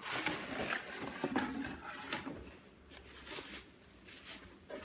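Cardboard subscription box being opened by hand: flaps lifting and the contents rustling, with scattered light taps and scrapes.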